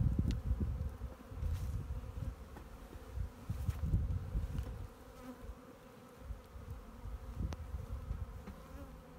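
Honeybee swarm buzzing steadily around an open wooden hive box, with a few sharp wooden clacks as frames are set back into the box. Strong low rumbles come and go during the first few seconds.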